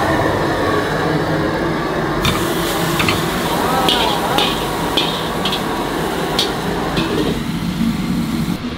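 Restaurant wok cooking: a steady hiss of burner and sizzling food, then, about two seconds in, a run of irregular sharp metal clanks and knocks as a wok and spatula scrape the food into a clay pot.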